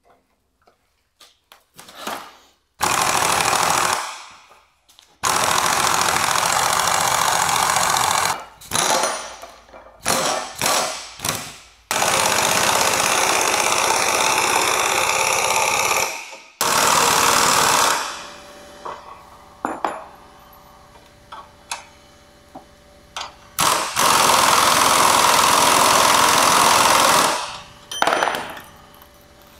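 Pneumatic impact wrench running in repeated bursts, several lasting a few seconds with short blips in between, driving the threaded rods of a pair of coil-spring compressors to compress a car's front suspension spring.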